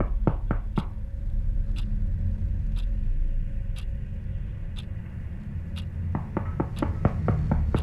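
Dark ambient background music: a steady low rumbling drone with sharp ticking clicks over it, rapid at the start and again near the end, about once a second in between.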